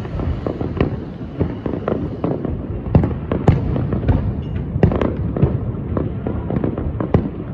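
Aerial fireworks display: an irregular, rapid series of shell bursts, bangs and crackles over a continuous low rumble, with the sharpest reports around the middle.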